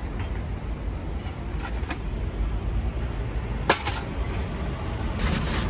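Steady low rumble of city street traffic, with a few light clicks early on and one sharp knock about two-thirds of the way through.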